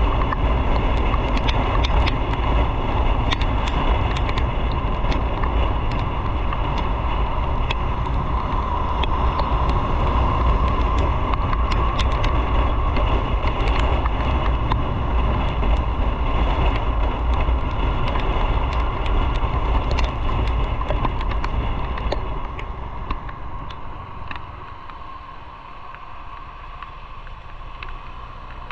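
Riding noise from a motorcycle on the road: the engine and tyre noise are heard under heavy wind rush on the microphone, with scattered light clicks. The noise dies down in the last several seconds.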